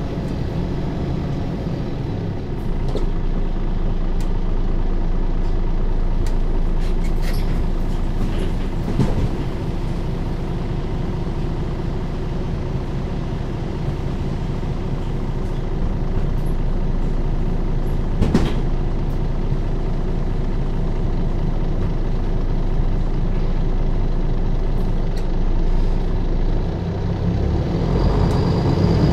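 MAN NL 283 Lion's City city bus's six-cylinder diesel engine running steadily, with a few short clicks and knocks. Near the end the engine gets louder and a high whine comes in.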